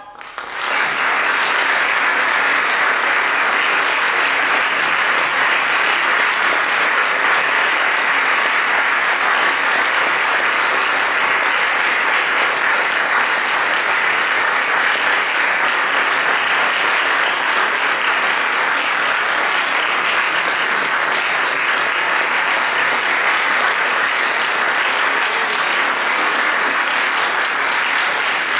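Audience applauding at the end of a choir's song, swelling within the first second and then holding steady.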